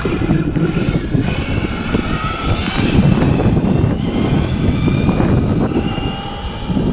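1:6 scale RC BMW M3 with a brushless electric motor running at speed on asphalt, its high motor and gear whine shifting in pitch as it drives away, over a loud low rumble.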